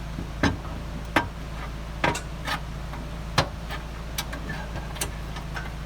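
Sharp metal clanks and knocks, about seven spread unevenly, as a pry bar works a gasifier loose from its bottom mounting bolt, over a steady low hum.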